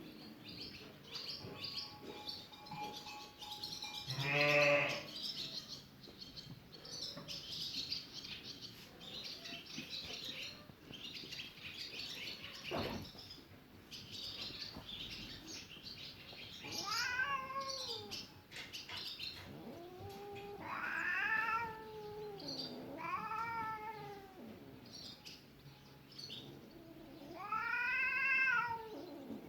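Cats meowing: drawn-out, rising-then-falling meows, the loudest about four seconds in and several more in the second half. A constant light crackle of small clicks runs underneath, and there is a single knock near the middle.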